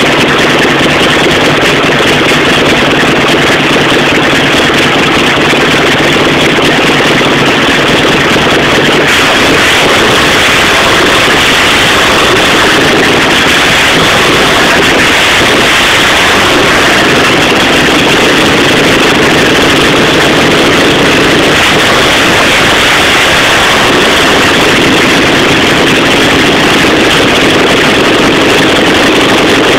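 Air-cooled VW flat-four camper engine running on test outside the vehicle, a loud steady run. Its note changes about nine seconds in and again near the end.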